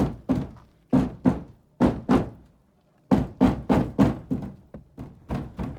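Banging on a chicken coop to scare a possum out: hard knocks and thuds in pairs, then a fast run of blows about three seconds in and a few more near the end.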